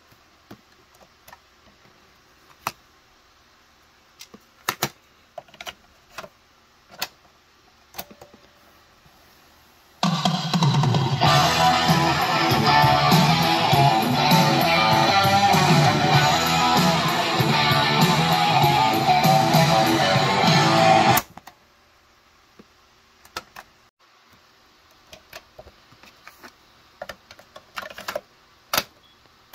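Clicks and clunks of a Quasar GX3636 boombox's cassette-deck keys and tape handling, then, about ten seconds in, guitar music playing from a cassette through the boombox's speakers for about eleven seconds before it stops suddenly. More sharp clicks follow as the deck is operated and the tape is ejected.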